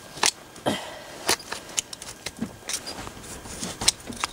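A metal hoof pick scraping packed dirt from a horse's hoof and clicking against the metal horseshoe. The strokes come as short, irregular clicks and scrapes, about two a second.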